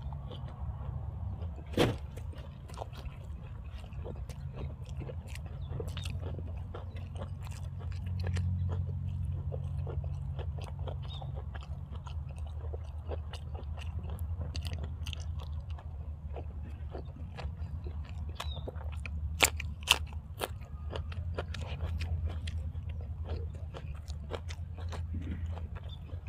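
A person chewing and crunching food close to the microphone, with irregular crisp crunches and a few sharper snaps, over a steady low hum.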